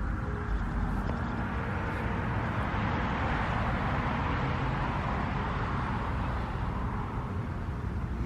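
Steady road and engine noise of a moving car, a low rumble under a hiss that swells for a few seconds in the middle and then fades.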